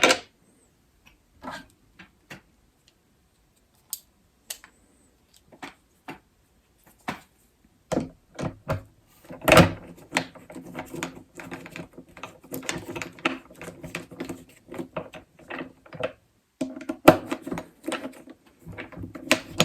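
Clicks and knocks of a plastic bracket and screws being fitted by hand onto a Yakattack CellBlok. There are scattered single taps at first, then from about halfway a dense run of quick clicks and rattling.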